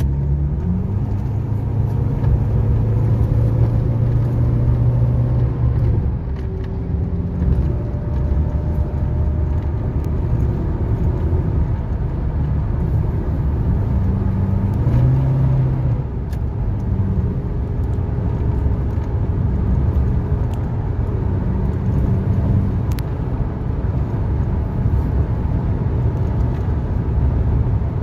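Engine and road noise inside the cabin of a Nissan Navara VL pickup at highway speed. The engine note climbs as it accelerates, eases off about six seconds in, and climbs again midway.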